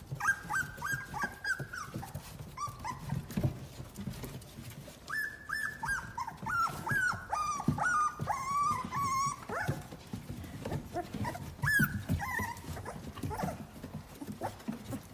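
Gun dog puppies whining and yipping in quick runs of short, high, falling cries, with scuffling and knocking underneath.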